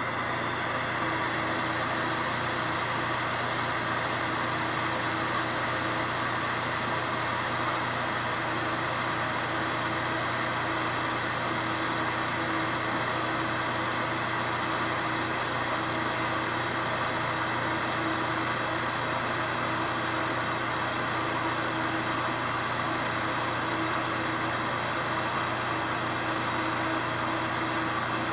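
Glassworking bench torch burning steadily: a constant rushing hiss of the flame, with a steady low hum underneath.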